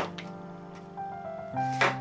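A chef's knife slicing through a zucchini and hitting the cutting board twice: once at the start and, louder, near the end. Background music with held notes plays throughout.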